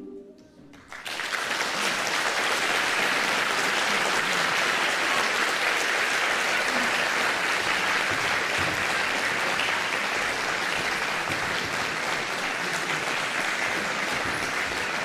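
The last held chord of the music dies away, and about a second in a concert audience breaks into steady applause.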